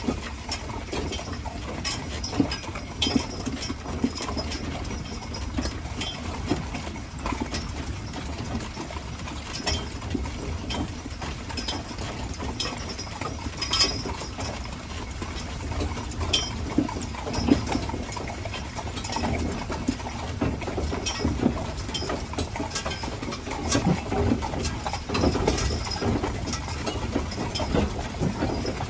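Hooves of a pair of Haflinger horses clip-clopping on the road as they pull a wagon, an uneven stream of sharp knocks over a steady low rumble from the rolling wagon.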